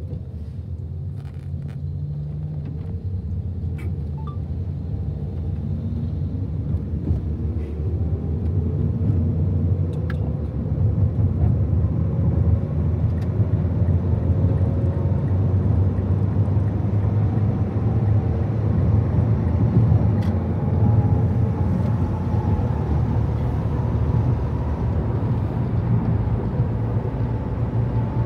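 Car road and engine noise heard inside the cabin while driving. A low rumble gets steadily louder and an engine tone slowly climbs in pitch as the car picks up speed.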